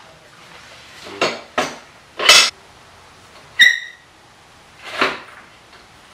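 Metal hand tools and motorcycle rear-wheel hardware clanking: several short clanks, a longer rattle about two seconds in, and a bright ringing metal clink a little past halfway.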